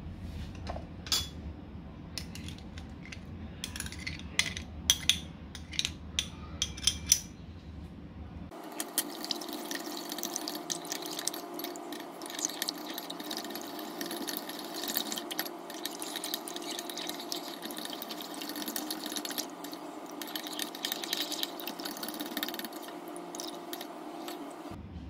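Sharp clinks and taps against a ceramic bowl, several loud ones between about four and seven seconds in. Then, from about eight seconds in, a metal spoon stirs and scrapes steadily through a liquid mixture in the bowl over a faint steady hum.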